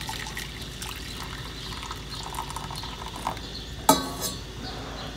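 Hot kahwa tea poured from a stainless steel mug into a steel saucepan, a steady splashing pour. About four seconds in comes one sharp metallic clink.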